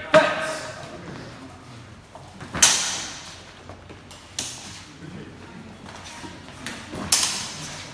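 Longsword fencing: a few sharp clashes that ring briefly in a large hall. The loudest come about two and a half seconds in and again near the end.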